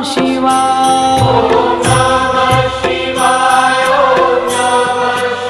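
Devotional chant music to Shiva: voices sing a mantra in long held notes over drums and percussion.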